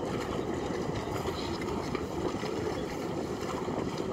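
Steady, even low rumble of boat motor and churning water alongside a dock, with a few faint clinks.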